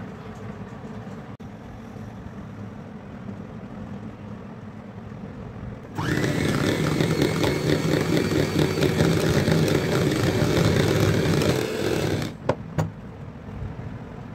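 Electric hand mixer switched on about six seconds in, its motor whining up to speed and then running steadily as its beaters whip cream in a bowl. It stops abruptly about six seconds later, followed by two sharp clicks.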